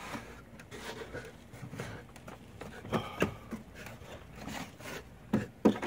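A hand scraping and rustling through packed mud and leaf debris in a roof gutter, with a few sharp knocks against the gutter, two about halfway through and two near the end.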